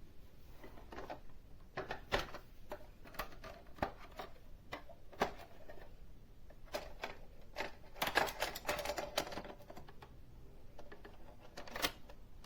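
Hard plastic toy parts of a Playmobil set clicking, knocking and rattling as they are handled, in irregular sharp clicks, with a brief burst of rapid rattling about eight seconds in.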